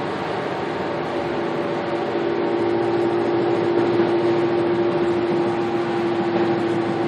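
Steady road and engine drone heard inside a car cabin at freeway speed, with a steady hum that grows a little stronger about two seconds in.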